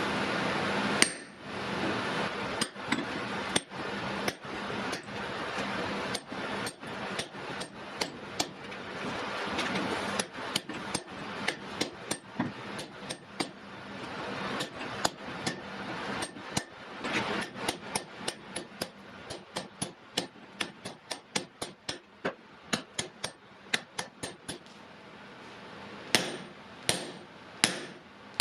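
Forging hammer striking hot wrought iron and steel on an anvil: a long run of sharp blows, about two a second, over a steady rushing noise that fades after about twenty seconds. After a short pause there are a few heavier blows near the end.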